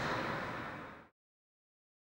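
A steady rumbling noise with no clear pitch fades out over the first second, then gives way to complete digital silence.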